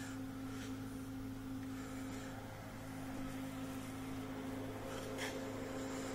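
Steady electrical hum of a wire-feed (MIG) welder idling between welds, with a couple of faint clicks of handling.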